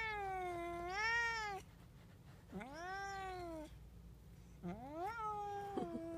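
Tabby cat meowing: three long, drawn-out meows, each rising and then falling in pitch. The first is already sounding at the start, and the third is still going at the end.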